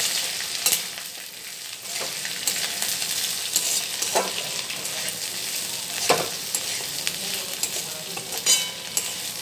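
Chopped vegetables sizzling as they fry in oil in a metal wok, stirred with a metal spatula that scrapes and clinks against the pan several times over the steady hiss. One strike near the end rings briefly.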